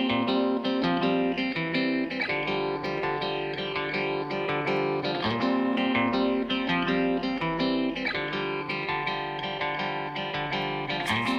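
Background music: a plucked guitar playing a repeating, rhythmic pattern.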